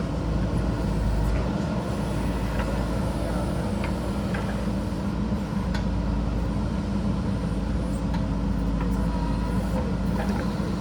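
JCB backhoe loader's diesel engine running steadily, with a few light ticks scattered through it.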